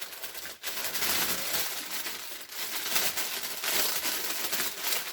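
Plastic wrapper crinkling and rustling as it is handled, in uneven bursts.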